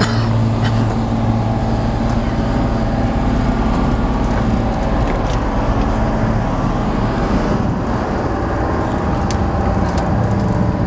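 Steady drone of a passenger launch's engines heard from inside the cabin, a low hum under a constant rushing noise.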